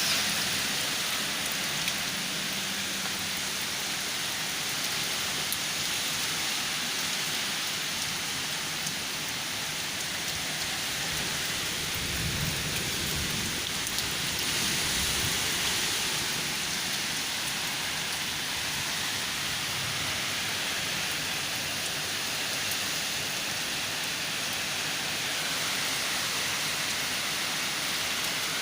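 Heavy rain falling in a thunderstorm, a steady dense hiss, with a low rumble coming in about twelve seconds in and fading a few seconds later.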